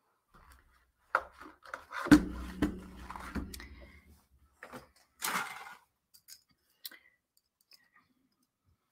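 Knocks and clatter of hard objects being handled on a craft table. The loudest knock comes about two seconds in, and there is a brief rustle just past five seconds.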